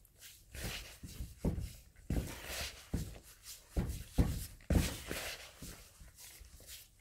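Hands rubbing and working damp, crumbly bath bomb mixture of sodium bicarbonate and SLSa in a clear bowl: soft scraping rustles with dull thumps, about two a second.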